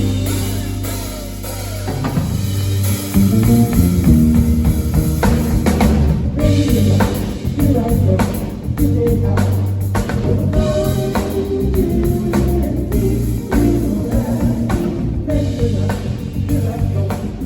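Live soul band playing: a drum kit and a bass line, with singing over them. The drums come in about two seconds in.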